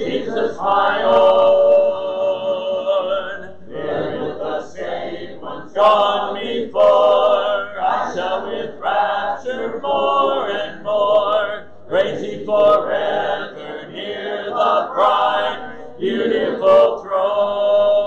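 Church congregation singing a hymn a cappella, held notes with short breaks between the lines.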